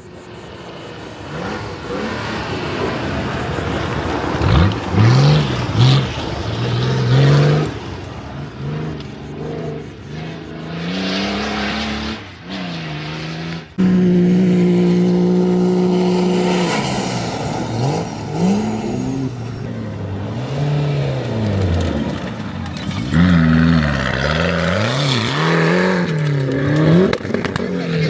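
Off-road 4x4 competition vehicle engines revving hard and easing off again and again, with one long steady high-revving stretch about halfway through. The sound changes abruptly a few times, from one vehicle to another.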